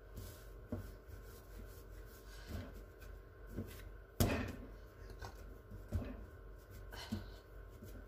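Hands rolling and pinching a log of bread dough on a silicone baking mat: soft rubbing and scattered light taps, with one louder knock about four seconds in.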